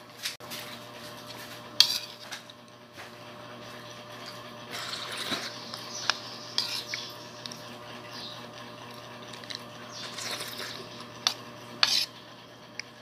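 A metal spoon clinking and scraping against a bowl as thick binignit is scooped up and eaten. A few sharp clinks stand out, the loudest about two seconds in and near the end.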